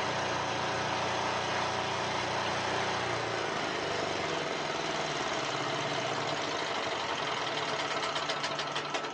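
Diesel portable generator engine running steadily. Its deep low note falls away about three and a half seconds in, leaving a lighter steady hum.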